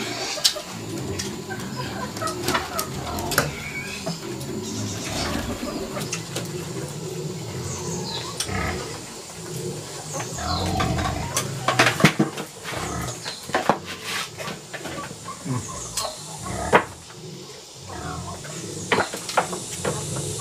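Chopsticks and a bowl clicking and clinking at a meal, in sharp separate clicks, with chickens clucking and small birds chirping in the background.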